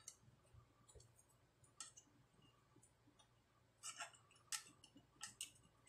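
Near silence with a few faint clicks and taps from hands handling the circuit board and parts inside an open power amplifier, most of them bunched together near the end.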